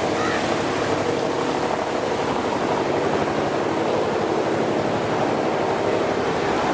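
A machine running steadily with an even rushing hiss over a low hum.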